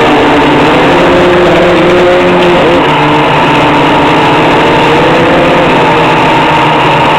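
Quadcopter's electric motors and propellers running loud and close, a steady buzzing whine made of several tones that drift up and down in pitch as the motor speeds change, with a quick wobble in pitch about two and a half seconds in.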